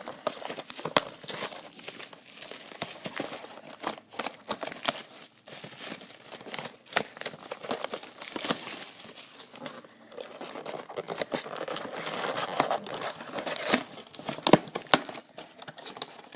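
Plastic shrink wrap crinkling and tearing as a sealed box of trading cards is unwrapped and opened, a steady crackle with many sharp snaps.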